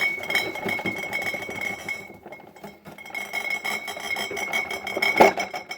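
Glass bottles in a refrigerator door's shelves rattling and clinking together as the door is shaken, with a steady glassy ringing over the rattle. A sharper, louder knock comes about five seconds in.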